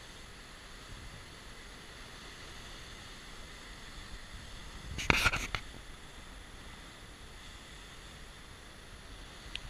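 Steady wash of sea surf breaking on rocks, with a brief loud burst of noise about five seconds in.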